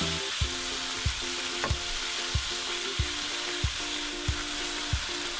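Beef and green pepper strips sizzling in a hot wok, with a spatula stirring and knocking against the pan about every two-thirds of a second.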